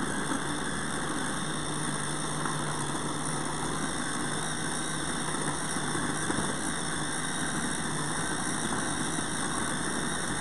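Battery-powered food processor's motor running steadily at its highest speed, its multi-chopping blade chopping onions and carrots in the bowl.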